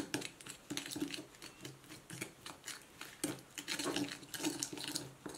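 Metal spoon scraping and clinking against a glass bowl in quick, irregular strokes, stirring a wet chilli spice paste.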